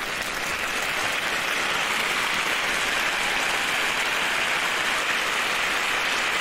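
A crowd clapping steadily, a stock applause effect, swelling slightly in the first second and then holding level.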